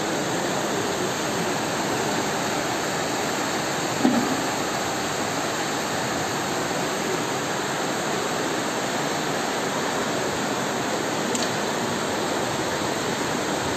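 Flash-flood water rushing in a torrent down a street, a steady, unbroken noise of churning water.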